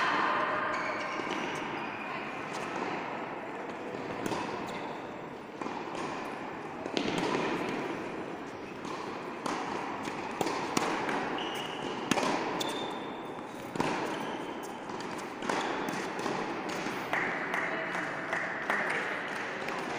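Tennis ball being hit and bouncing on an indoor hard court: irregular sharp knocks a second or so apart, over a background murmur of voices.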